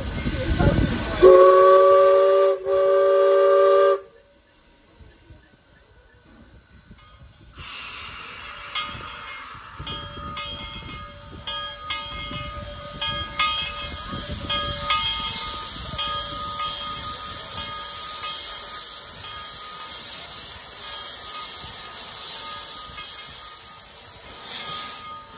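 A steam locomotive's multi-note chime whistle sounds two loud blasts, the first breaking off briefly before the second. After a few near-quiet seconds a steam locomotive hisses steadily from its open cylinder cocks, with scattered light metallic clinks.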